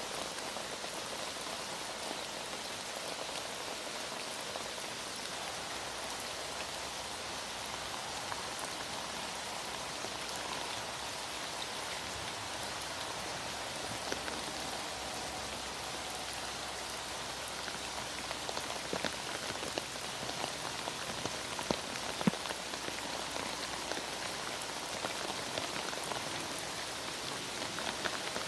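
Heavy rain falling steadily, with a few sharper drops striking a surface about two-thirds of the way through.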